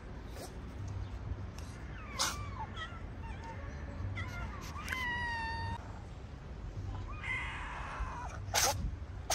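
A stray cat meowing: short wavering calls about two seconds in, then one longer, clear meow about five seconds in, with a few sharp clicks near the end.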